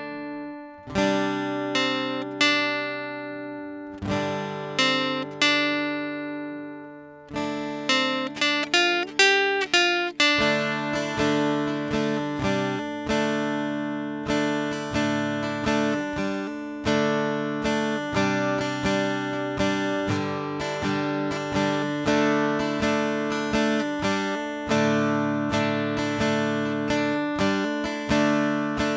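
Intro music: an acoustic guitar picking single notes, a few slow ringing notes at first and then, from about seven seconds in, a steady run of quick picked notes.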